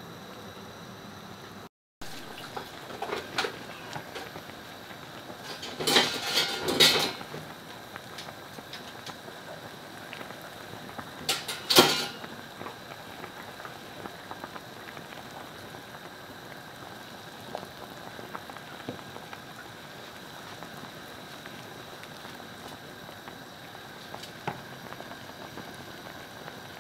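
Pot of sinigang broth with milkfish and vegetables bubbling steadily on a gas hob. A ladle clatters against the pot in short bursts, loudest around six to seven seconds in and again near twelve seconds.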